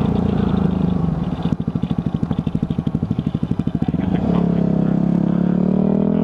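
Yamaha WR250F's single-cylinder four-stroke engine, on the move. It runs steadily, then drops to a slow putter with separate firing beats about a dozen a second, and from about four seconds in revs up with rising pitch as the bike accelerates.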